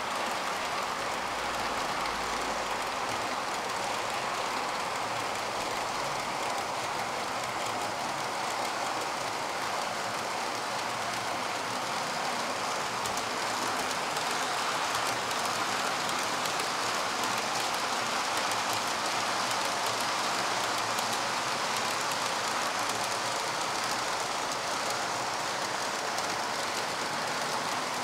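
Model train running along its track, heard from a camera carried on the train: a steady, even rolling noise of small wheels on rails and the drive running.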